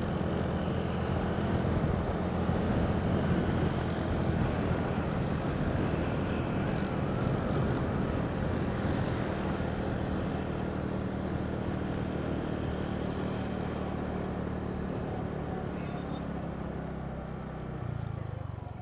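Motorcycle engine running steadily while riding, with a continuous wind and road noise over it; it eases off slightly near the end.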